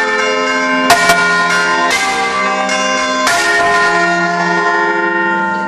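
Church bells rung by rope, several bells striking one after another, their tones ringing on and overlapping into a dense chord. The strongest strikes come about a second in.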